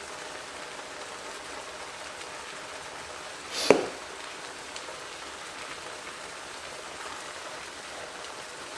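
Chicken breasts sizzling steadily as they fry in a pan, with a single sharp clink of metal against the pan about three and a half seconds in.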